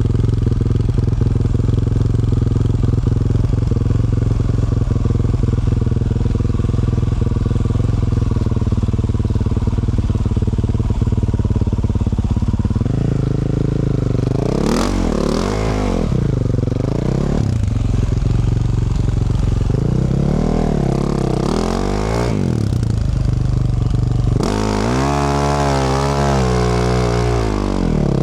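2024 Yamaha YZ450F's single-cylinder four-stroke engine, fitted with a Yoshimura RS-12 exhaust, idling steadily. About thirteen seconds in it is revved in a series of rising and falling blips, the longest near the end.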